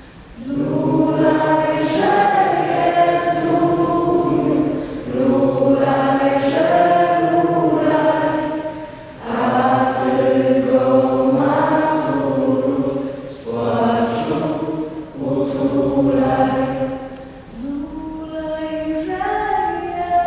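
A mixed group of young male and female voices singing together, unaccompanied, a slow song in phrases of about four seconds, each followed by a brief pause for breath.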